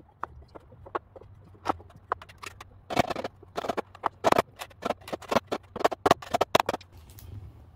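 Knocking on the pine boards of a handmade wooden bed frame as parts are tapped into place: a few scattered knocks, then a quick run of loud knocks that stops near the end.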